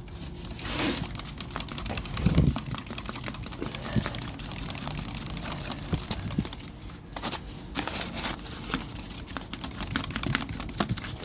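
Cardboard and paper of a small cardboard fire crinkling and crackling in quick irregular clicks, as the knocked-over fire is handled and relit.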